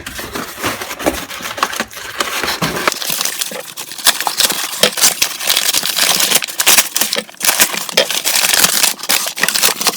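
Packing wrapping being crinkled and crumpled by hand as a tool is unwrapped from a box, a steady run of crackling.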